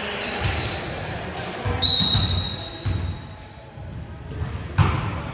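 A ball thudding on a gym floor a few separate times, echoing in a large hall, with a brief high-pitched tone about two seconds in.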